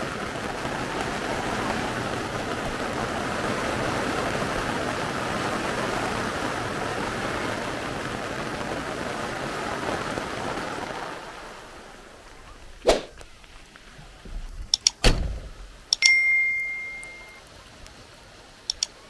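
Steady rain falling. About eleven seconds in it gives way to quieter rain with a few sharp knocks and a short ringing ding.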